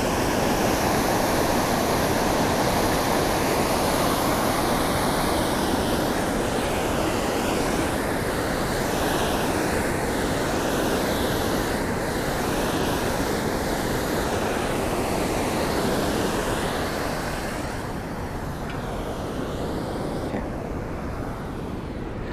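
Steady rush of river water pouring over a low concrete weir, with wind buffeting the microphone; it eases slightly near the end.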